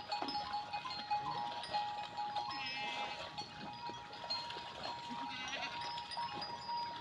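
Farm-animal ambience with a short, quavering bleat about two and a half to three seconds in and a fainter one near the end, over a steady high-pitched hum.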